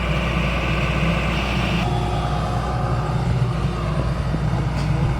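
Excavator's diesel engine running steadily with a low rumble, its tone shifting abruptly about two seconds in.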